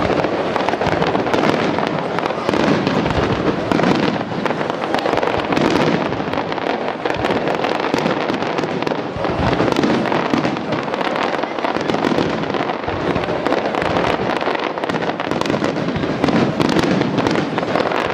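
Fireworks display going off continuously: dense overlapping bangs, pops and crackling shells with no pause.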